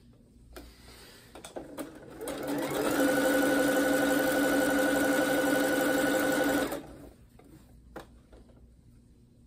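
Electric domestic sewing machine stitching a seam on stretch leggings fabric. After a few light clicks, the motor winds up with a rising whine about two seconds in, runs at a steady speed for about four seconds, then stops.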